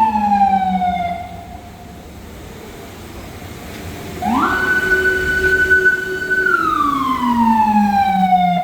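Emergency vehicle siren wailing: the pitch rises and then slowly falls. About four seconds in it climbs again, holds for about two seconds and falls away, over a low steady tone.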